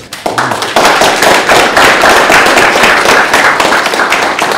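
Audience applause: many hands clapping in a dense, steady wash that swells up over the first second.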